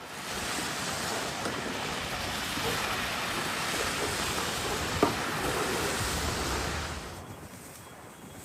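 Steady rushing noise of a winter storm, wind or surf, with no clear pitch; it eases off about seven seconds in, and a single sharp click comes about five seconds in.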